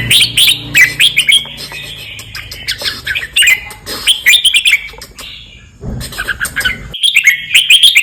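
Red-whiskered bulbul singing: quick groups of bright, sliding chirpy notes, phrase after phrase, with short pauses about two seconds in and again in the middle before a last burst near the end.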